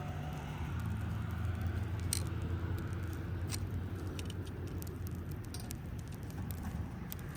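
Wood bonfire crackling with scattered sharp pops, over a steady low rumble of road traffic.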